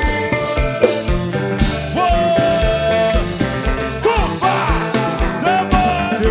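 Live kompa band playing: kick drum and bass keeping an even beat under guitar and keyboards, with a singing voice, and a long held note about two seconds in.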